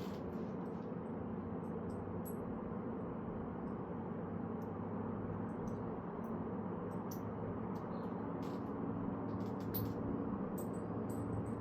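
Steady low background hum with scattered faint light clicks.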